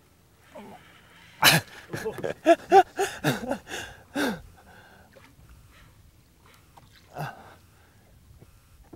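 A person's short non-word vocal sounds, gasps and exclamations, in a quick burst starting about a second and a half in, with one more brief sound about seven seconds in.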